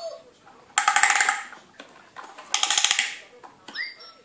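Battery-operated toy tractor playing electronic sound effects: two short, rattly, rapidly pulsing bursts a bit under two seconds apart, then swooping electronic tones that start near the end.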